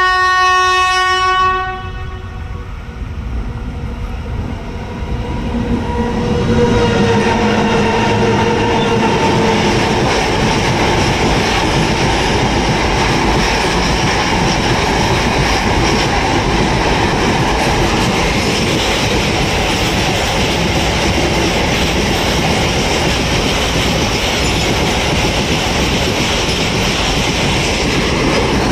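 Electric locomotive's horn held in one long blast that cuts off about a second and a half in. The locomotive then passes with tones that fall in pitch, and a long rake of freight wagons rolls by with steady noise of wheels on rail.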